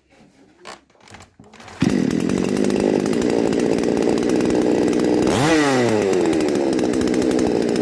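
Techman petrol chainsaw's two-stroke engine comes in abruptly about two seconds in and idles steadily. About two-thirds of the way through it gives one quick rev that rises sharply and falls back to idle within about a second. It is running on a freshly replaced piston and cylinder kit.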